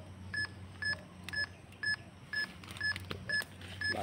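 Short electronic beeps repeating evenly, about two a second, over a steady low hum.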